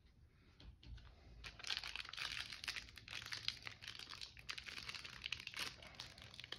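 Foil wrapper of a Panini Absolute football card pack crinkling and crackling as it is torn open by hand, starting about a second and a half in.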